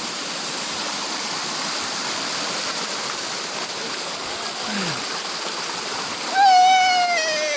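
Steady rush of a stream running over the rocks of a waterfall. Near the end, a person's voice calls out in one long note that slowly falls in pitch.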